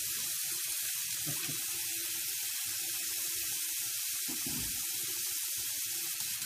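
Water running steadily from a bathroom sink tap into the basin, an even hiss of splashing.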